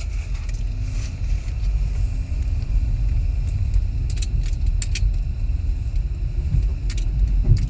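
Truck towing a loaded trailer, its engine and low rumble running steadily as it moves up, with a few scattered sharp clicks and rattles.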